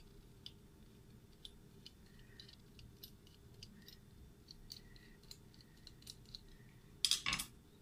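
Faint, irregular small clicks of a metal worm-drive hose clamp being handled and loosened with a screwdriver, a few a second. A brief louder noise comes near the end.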